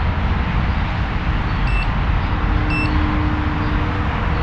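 Two short high-pitched beeps about a second apart from a digital multimeter being switched over to its ohms setting, over a steady low rumbling background noise.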